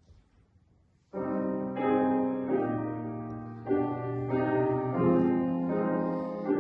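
Grand piano played slowly in held chords, starting suddenly about a second in and moving from chord to chord.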